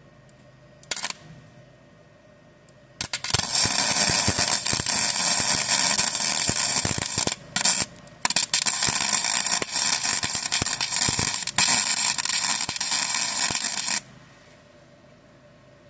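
Gasless flux-core MIG welder arc crackling as it runs a bead on a 2 mm steel patch. There is a brief blip about a second in, then continuous crackle from about three seconds in until shortly before the end, broken twice by short pauses around the middle.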